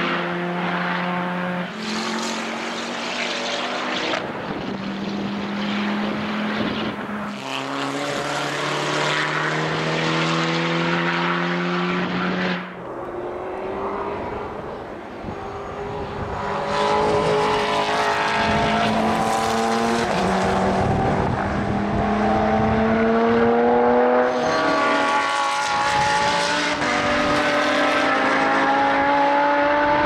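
Race car engines at high revs lapping a circuit, their pitch climbing through each gear and dropping sharply at every upshift, with several cars heard overlapping as they pass.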